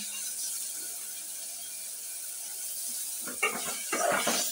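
Soaked moong dal sizzling as it fries in oil and tomato masala in a metal pot. About three seconds in, a slotted metal spatula starts scraping and stirring against the pot.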